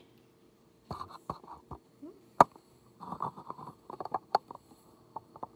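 Small clicks and taps of handling at a plastic egg candler as an egg sits in its lit cup, in irregular clusters with one sharp click about two and a half seconds in, over a faint steady hum.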